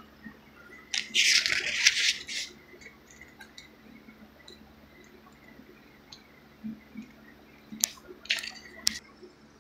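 Rustling handling noise: a loud scratchy rush about a second in lasting about a second and a half, then a few sharp clicks and a shorter rush near the end, as the phone is moved and a finger rubs across a paper page.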